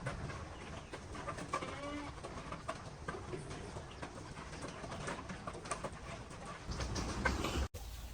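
Birds cooing in short repeated calls over a busy farmyard background, with a low rumble near the end that cuts off abruptly.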